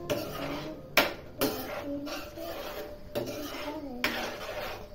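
Metal spoon scraping and stirring chicken pieces in sauce in a steel frying pan, in repeated rasping strokes, with a sharp clink about a second in.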